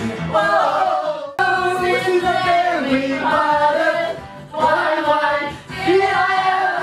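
Karaoke: several people singing along into microphones over a pop backing track, with an abrupt cut in the sound about a second and a half in.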